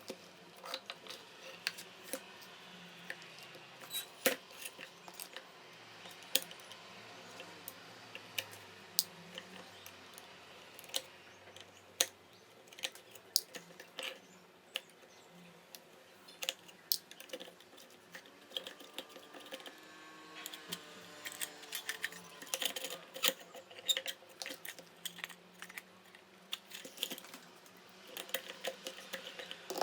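Small metal parts of an old rusty manual coffee grinder being handled on a work surface: irregular light clicks, taps and knocks, several a second at times, some louder than others.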